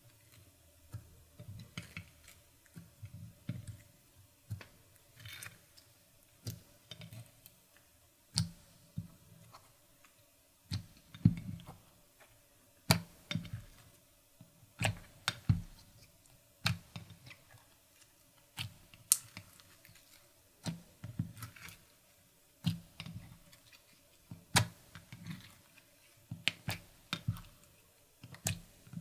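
Clear slime being kneaded and pressed by hand, giving irregular sharp clicks and pops every second or two, with softer low sounds between them.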